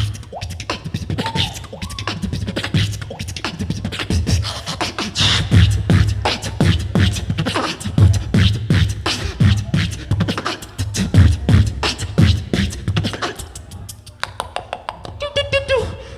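Solo beatboxing through a handheld microphone and PA: a fast, steady beat of mouth-made kick-drum thumps and sharp snare and hi-hat clicks. Near the end the beat thins and a pitched, sung-like tone joins it.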